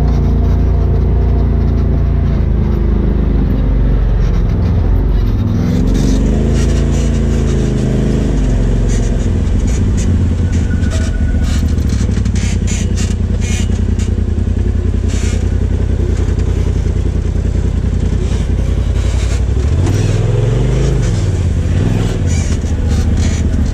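Polaris RZR Turbo S's turbocharged twin-cylinder engine, heard from the cab, revving up and down as the UTV crawls a rutted dirt trail. From about six seconds in, frequent knocks and rattles come from the vehicle jolting over the bumps.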